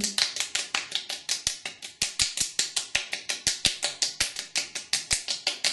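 Fingertips rapidly patting and slapping the skin of the face and neck, about eight light slaps a second, to stimulate the blood flow so that the freshly applied cream soaks in.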